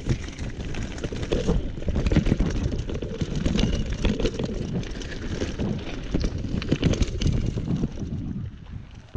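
Mountain bike rattling and clattering at speed over a rough, rutted gravel track, with heavy wind noise on the microphone. It quietens shortly before the end.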